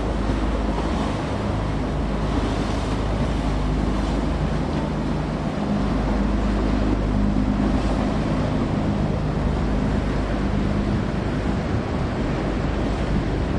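A boat engine droning steadily as it passes, over the wash of surf and wind buffeting the microphone.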